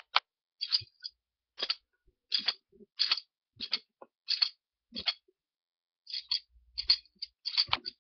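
Hinged Smith & Wesson handcuffs clicking as a jaw is swung through the ratchet, a short burst of metal clicks about every two-thirds of a second, coming faster near the end. The top jaw moves through without a key, which it should not be able to do: the cuffs are broken.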